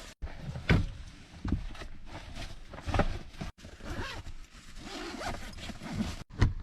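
A bag being packed and zipped: rustling and scraping as gear is handled, with zipper pulls, in short separate bursts that cut off abruptly a few times.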